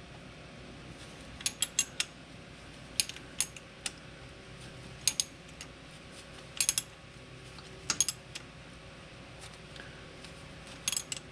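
An 8 mm wrench backing out the cross-pin retaining bolt in the differential carrier of a Chrysler 8 1/4 rear axle: short clusters of two to four sharp metallic clicks, about every second and a half.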